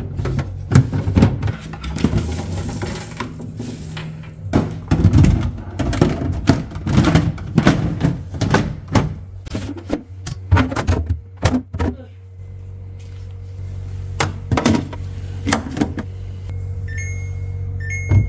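Containers and jars knocking and clattering as a fridge is being emptied and reorganized, over a steady low hum. After about twelve seconds the knocks thin out, the hum steadies, and a few short high electronic beeps sound near the end.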